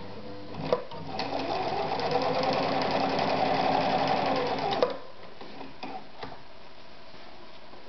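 1966 Husqvarna Practica 4010 sewing machine sewing a straight stitch for about four seconds under its foot control, the electric motor speeding up and easing off with the needle mechanism ticking rapidly. It stops abruptly, followed by a couple of light clicks.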